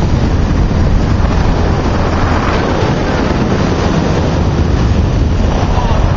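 Steady rush of wind on the microphone over a motorboat's engine running at speed.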